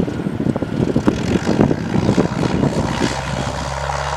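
Cessna 172R Skyhawk's four-cylinder piston engine and propeller running as it rolls along the runway on a touch-and-go, under gusty wind noise on the microphone. About three seconds in, a steady low propeller drone comes clear.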